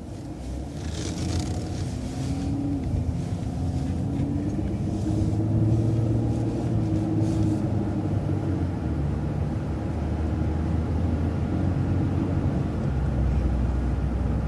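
City transit bus engine pulling away from a stop sign through a right turn and accelerating, heard from inside the bus: it gets louder and its pitch rises over the first few seconds, then it runs steadily.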